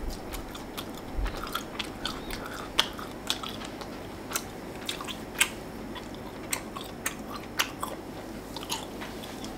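A person chewing a mouthful of smoked steak, with irregular wet smacks and clicks, a few a second.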